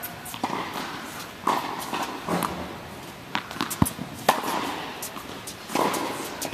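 Tennis balls struck by rackets and bouncing on an indoor hard court: a run of sharp pops about once a second, each ringing briefly in the hall.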